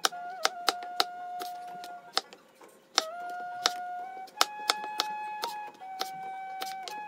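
Chef's knife chopping through eggplant onto a plastic cutting board: about a dozen sharp, irregular knocks, some in quick runs. Soft background music with long held notes runs under them.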